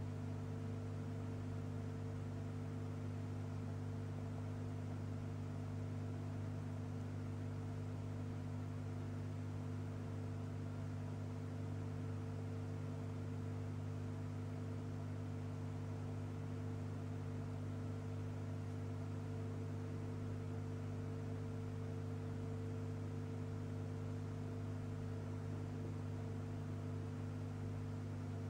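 Steady low electrical hum, with a faint hiss behind it.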